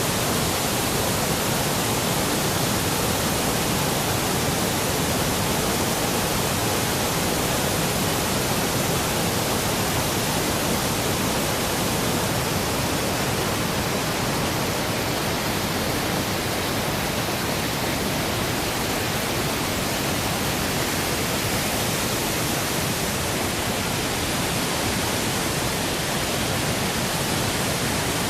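Waterfall running in heavy flow, swollen by recent downpours: a loud, steady rush of falling water.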